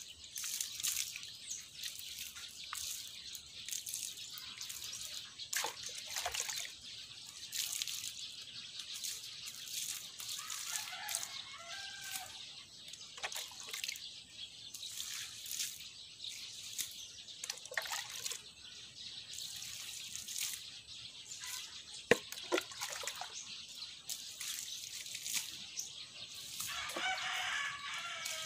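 Water poured from a small pot onto garden soil in repeated splashes and trickles, watering the planting bed. A sharp knock sounds a little past twenty seconds in, and a bird calls twice in the background, about ten seconds in and near the end.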